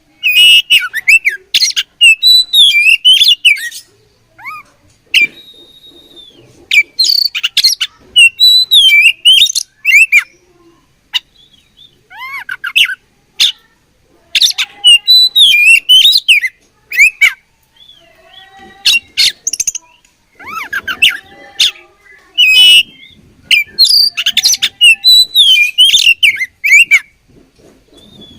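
Oriental magpie-robin (kacer) singing loud bursts of rapid, varied chirps and whistles. The phrases last one to three seconds and are separated by short pauses.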